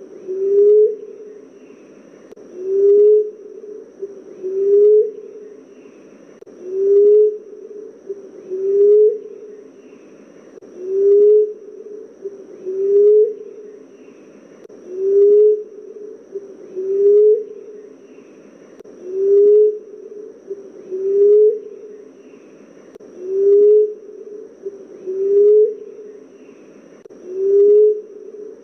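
Common emerald dove calling: a low coo that rises slightly in pitch, repeated about every two seconds.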